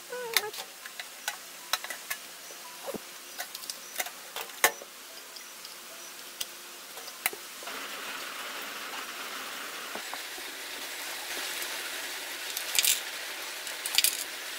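Clicks and knocks of cables being handled and plugged into the back of a desktop PC tower. About halfway through, the computer is switched on and its cooling fans start, a steady whoosh that carries on, with a few more clicks near the end.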